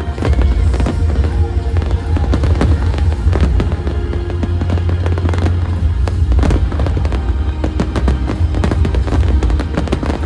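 Fireworks going off in rapid bangs and crackles over loud music, the soundtrack that the display is fired in time with.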